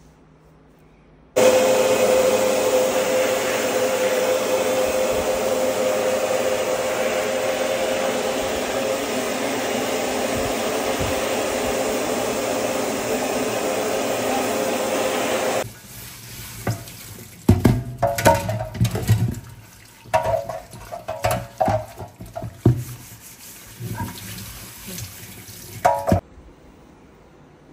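Water running hard from a tap into a sink, starting suddenly and cutting off about fifteen seconds in. Irregular knocks and clatter follow for about ten seconds, as items are handled and scrubbed at the sink.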